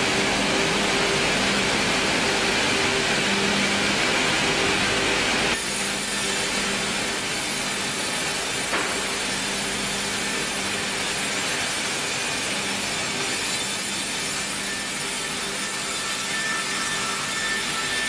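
Fimaksan multi-head vertical band resaw sawing a timber cant as it feeds through on a powered roller conveyor: steady sawing noise over a low machine hum. The noise drops a little about five and a half seconds in.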